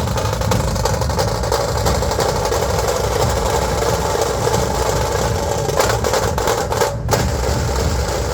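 Dhol drums beating together in a loud, dense, continuous rhythm.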